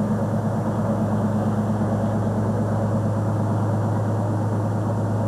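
Steady low drone of an idling engine, one unchanging hum.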